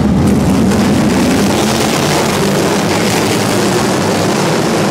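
A field of NASCAR modified race cars running together at speed, their V8 engines blending into one loud, steady din.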